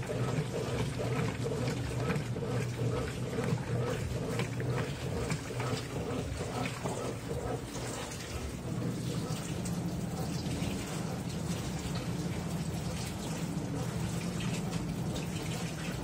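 Washing machines running: a top-loading washer's agitator churning and sloshing water in its tub over a steady motor hum. About halfway through, the hum shifts to a different pitch as the sound of a front-loader's drum tumbling wet laundry takes over.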